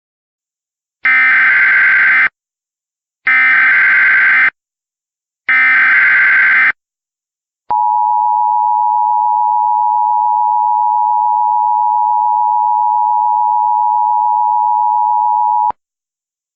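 Emergency Alert System header tones: three identical bursts of digital data noise, each about a second long and a second apart. Then comes the steady two-tone EAS attention signal, held for about eight seconds before it cuts off. Together they announce that an emergency alert message is about to follow.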